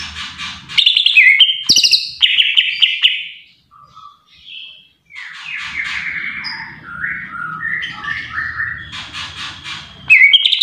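Green leafbird (cucak ijo) singing a loud, varied song of rapid chirps, trills and short gliding whistled phrases, with a brief lull in the middle before it resumes.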